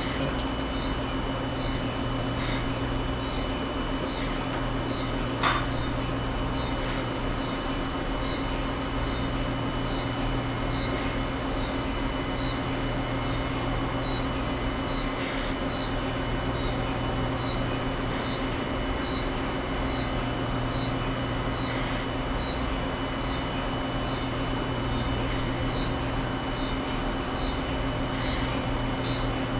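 Steady machine hum with a faint high chirp repeating a little faster than once a second, and one sharp click about five seconds in.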